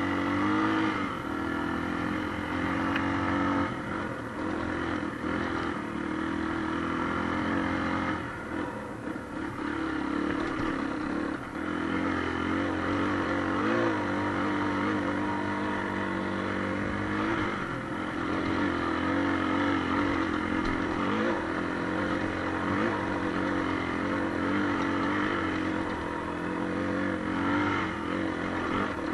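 Motorcycle engine running while riding, its note rising and falling again and again with the throttle, easing off briefly about eight and eleven seconds in.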